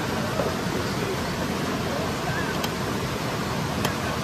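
Steady rush of flowing river water, an even noise without any rhythm.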